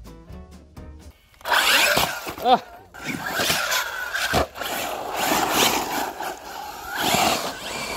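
Electric 1/8 RC buggy (HoBao Hyper VS on 4S) driving hard on dry dirt: its motor whine rises and falls over tyres scrabbling on loose ground. There is a sharp knock about four and a half seconds in.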